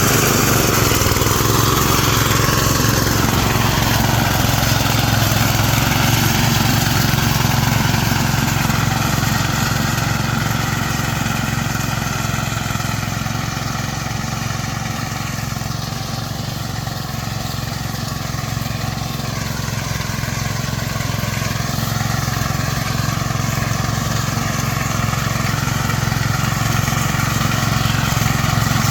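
Rice reaper machine's engine running steadily while the reaper works, a little quieter around the middle.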